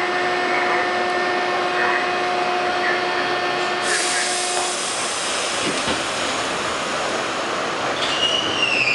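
Westinghouse R68 subway car running, heard from inside the car: a steady rumble and rush of wheels on track, with a steady whine through the first half. A harsher hiss comes in about four seconds in, and near the end a high wheel squeal falls in pitch.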